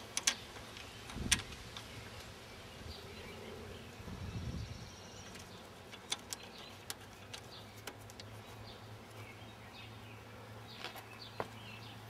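Quiet, scattered small metallic clicks and taps as a brake-line bracket and its bolt are fitted by hand on a car's front strut. Faint bird or insect chirps can be heard, with a brief low rumble about four seconds in and a steady low hum through the second half.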